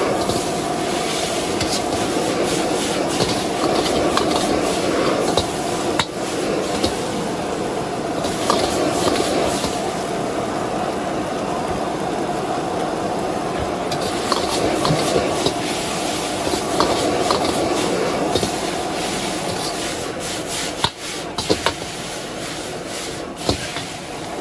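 Food sizzling in a hot wok as it is stir-fried, with the metal spatula scraping and knocking against the wok at irregular intervals, a few sharper knocks near the end.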